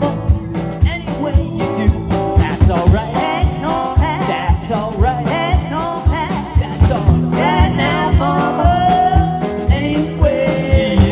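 Live band playing an upbeat rock-and-roll number: electric guitar, bass guitar and drum kit, with a steady kick-drum beat running under it.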